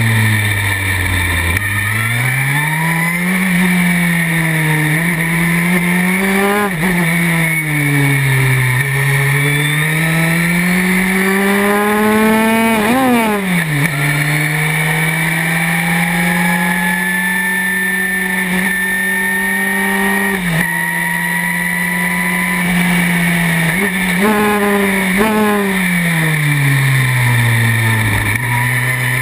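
Historic Formula 3 car's engine heard from onboard, revving up and dropping with each gear change. Quick upshifts come about halfway through, then it holds one steady high note at full throttle for several seconds. Near the end it steps down through a run of downshifts to a low note and starts climbing again.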